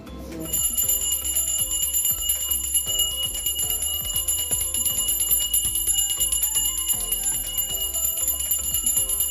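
Small brass puja hand bell rung rapidly and without a break during aarti. The ringing starts about half a second in, with faint devotional music underneath.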